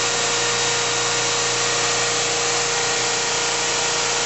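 GMP SG-1000/400 hydraulic surface grinder running, its spindle and hydraulic pump motors giving a steady hum with a constant whine over an even hiss.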